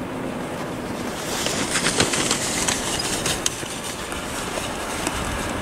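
ČME3M diesel-electric shunting locomotive approaching and passing with its engine running in a low steady hum. From about a second and a half in, its wheels clack sharply over the track over a rising hiss.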